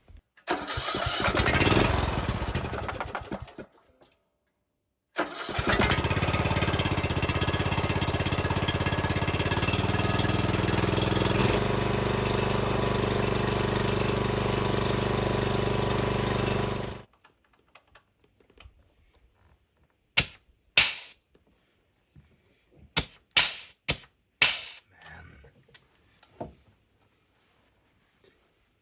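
Riding-mower overhead-valve engine running steadily at an even speed through its freshly rewelded exhaust manifold, cutting off abruptly after about twelve seconds. It is preceded by a harsh noisy burst about three seconds long and followed by a few sharp clicks.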